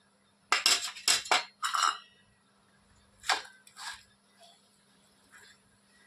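Dishes and utensils clinking and clattering. A quick run of several knocks comes in the first two seconds, two more follow around three to four seconds in, and then a few faint taps.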